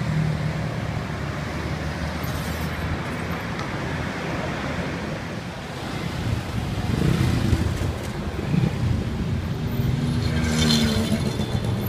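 City street traffic: cars, taxis and motorcycles driving past with engines running. One vehicle passes louder about seven seconds in, and another about ten seconds in.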